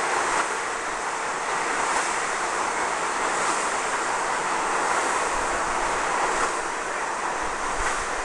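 R62A subway train departing the station, its cars and wheels running along the track with a steady rushing noise.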